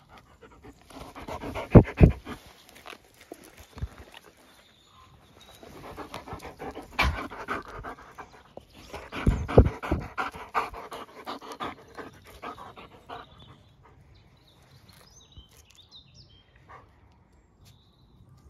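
A large dog panting hard close to the microphone, in bursts, with a few sharp bumps against the mic. The panting dies away about two-thirds of the way through.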